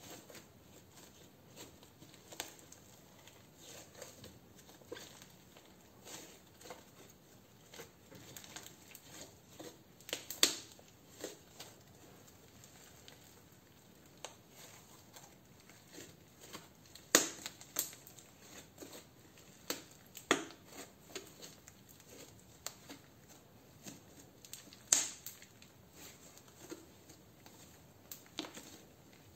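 Hands kneading and squeezing fluffy pink slime mixed with glitter and pearl beads: a run of small clicking pops and crackles as the slime is pressed and folded, with several louder pops.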